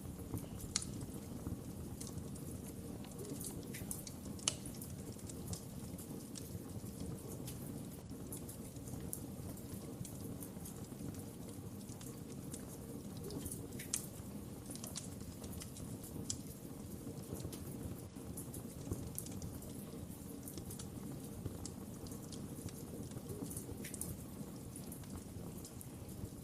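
Wood fire crackling in a fireplace: a steady low rumble of burning with scattered sharp pops and snaps, a few of them louder, about a second in, near four and a half seconds and near fourteen seconds.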